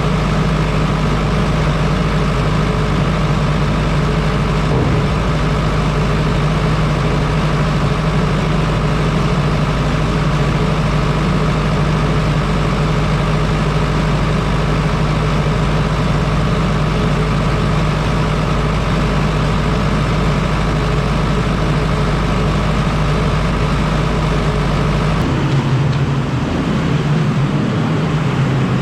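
Grain-milling machinery running with a steady, loud drone as it mills barley for cattle feed. About 25 seconds in, the sound changes and its deepest part drops away.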